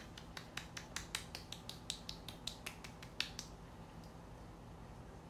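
A quick, even run of light sharp taps or clicks, about six a second, that stops about three and a half seconds in.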